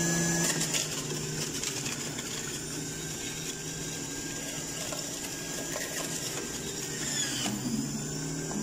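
Electric centrifugal juicer running, shredding apple pieces pushed down its feed tube. The motor hum and whine turn rough, with crackling from the grating disc, a little after the start, then steady again near the end as the load comes off.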